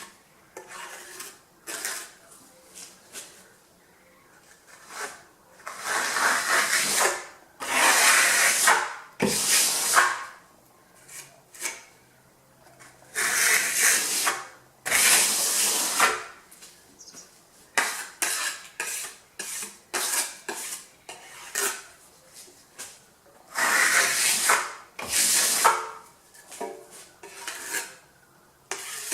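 Steel trowel spreading and scraping decorative plaster over a surface: a series of harsh scraping strokes of about a second each, with lighter scrapes and taps between.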